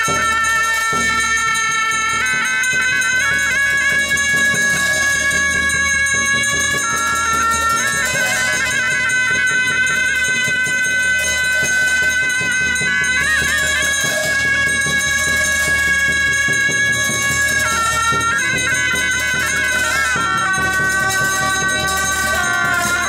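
Two gyaling, Tibetan Buddhist double-reed horns, playing a melody of long held notes with wavering trills between pitch changes, over steady clashing of ritual hand cymbals.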